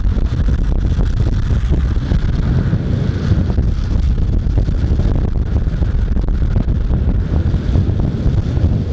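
Heavy wind buffeting the microphone at high speed, over the steady rumble of wheels rolling on asphalt during a downhill longboard run.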